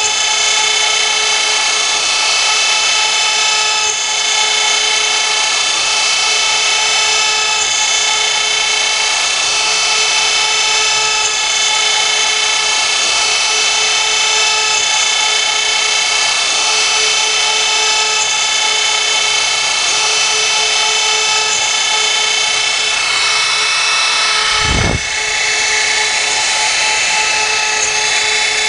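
CNC router spindle running at a steady high-pitched whine while it cuts, with a brief dip and a low thump near the end.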